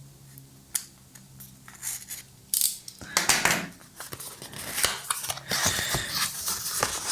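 Sealed packaging being handled and opened by hand: a few scattered clicks, then irregular crinkling and rustling of wrapping from about two and a half seconds in. A faint low hum sits under the first couple of seconds.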